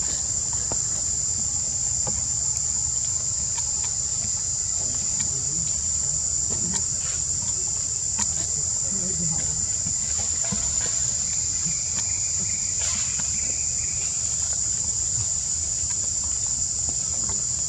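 Steady, high-pitched shrill of insects singing in unison, unbroken and even in level, over a faint low rumble.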